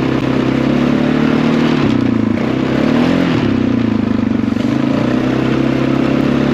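Small off-road vehicle engine running steadily while riding. Its pitch dips about two seconds in and climbs back a second later as the throttle is eased and opened again.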